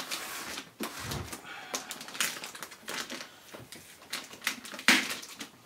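Plastic packaging bag crinkling and rustling in irregular crackles as hands pull and handle it around a small boxed server; the sharpest crackle comes near the end.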